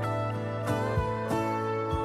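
Background music: plucked strings over a held bass note, with a steady beat.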